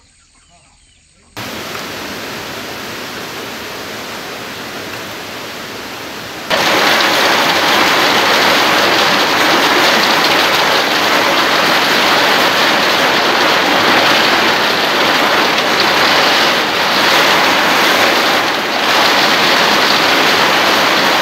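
Heavy rain pouring steadily, starting abruptly about a second in and getting much louder about six seconds in.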